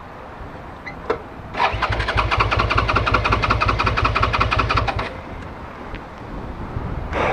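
Suzuki SV650S V-twin motorcycle's electric starter cranking the engine for about three and a half seconds with an even pulsing rhythm. The engine does not catch: the bike won't start. A click comes just before the cranking, and another burst of sound begins near the end.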